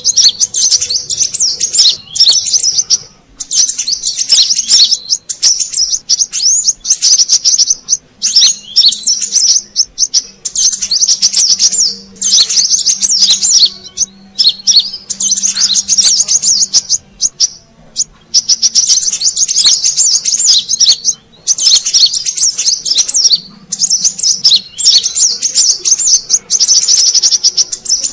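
Kolibri kelapa (brown-throated sunbird) lure call: rapid, high-pitched twittering chirps in bursts of one to three seconds with short breaks between them.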